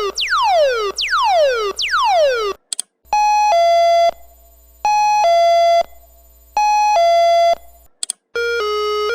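Electronic buzzer of an industrial signal light playing its sample alarm tones. First a tone sweeps quickly down in pitch, repeated several times under a second apart. After a short break a high-then-low two-note chime plays three times with pauses between, and near the end a faster alternating two-tone pattern begins.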